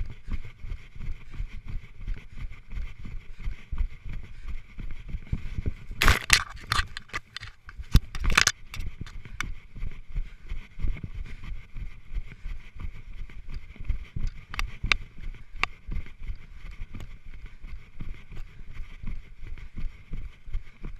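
Running footfalls on grass thudding about three times a second through a GoPro worn by the runner, with rubbing and jolting of the camera housing. A burst of sharp crackling scrapes comes about six seconds in and lasts a couple of seconds.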